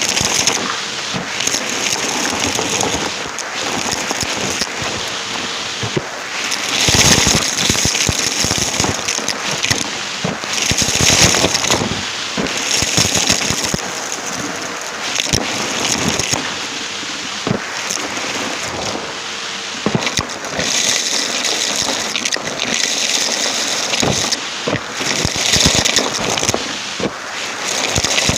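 Close-miked Numatic James vacuum cleaner sucking up crunchy debris: a dense crackle and rattle of small clicks, surging louder several times.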